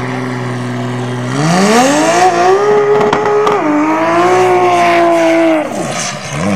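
Drag car's engine held at high revs during a burnout at the start line, tyres spinning. The revs climb about a second and a half in, hold, dip slightly, then fall away near the end.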